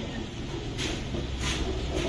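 Skewered kebabs sizzling over a charcoal grill, with two short hisses a little under a second apart as fat flares on the coals, over a steady low background rumble.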